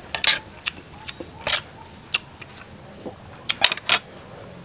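Close-up mouth sounds of a person chewing soft, wet raw tuna kinilaw: scattered short wet clicks and smacks, with a quick cluster of them near the end.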